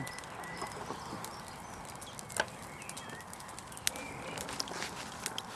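Low-level outdoor ambience: a steady faint hiss with a few short bird chirps and several isolated sharp clicks.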